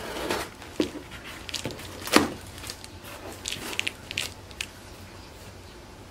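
Packing tape on a cardboard box being cut with scissors and ripped, then the cardboard flaps pulled open. The result is a string of crackles, rips and scrapes, the loudest about two seconds in, with a quick run of small clicks a little later.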